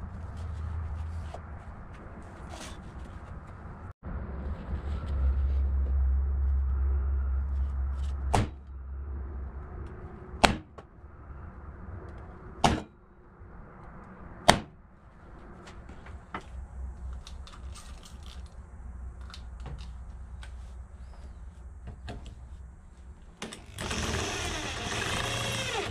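A hammer strikes a punch on a steel plate four times, about two seconds apart, marking hole centres. A loud low rumble runs for a few seconds before the strikes. Near the end a power drill starts boring into the steel plate.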